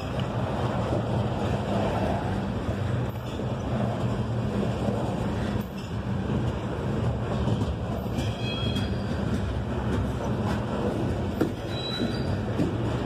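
Loaded coal hopper cars rolling past at trackside: a steady rumble of steel wheels on the rail with faint clicking, and brief high wheel squeals about eight seconds in and again near the end.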